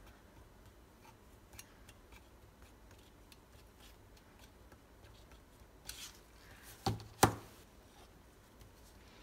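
Faint scraping and ticking of a metal palette knife spreading thick acrylic paint along the edge of a stretched canvas. About seven seconds in, two sharp knocks, the second the loudest, as the canvas is set down flat on the table.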